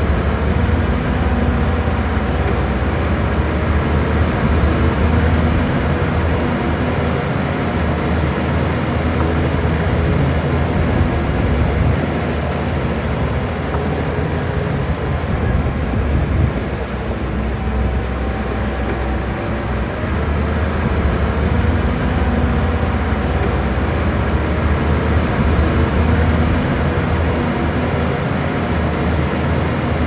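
Heavy diesel engine of earthmoving machinery (bulldozer or dump truck) running under load, a steady deep engine drone with a rattling haze above it. It eases off about twelve seconds in and builds back up some eight seconds later.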